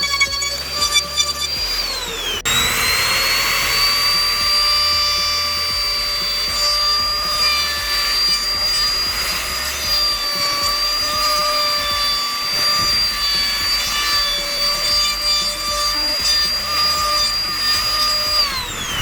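Electric power-tool motor running with a steady high-pitched whine. It winds down about two seconds in, spins straight back up, runs at constant speed, then winds down near the end.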